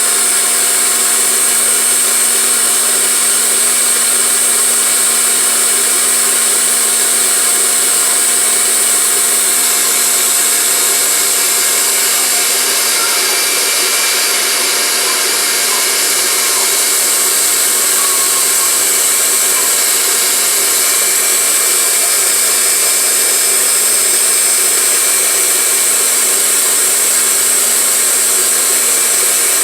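KitchenAid Artisan stand mixer running steadily: a loud, even motor whine with a strong high hiss.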